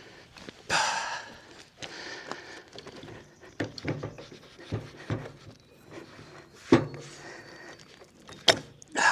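A person breathing hard and exhaling with effort, with a series of sharp clicks and knocks as a PTO Link quick coupler is pushed and worked against a tractor's PTO shaft that it won't slide onto.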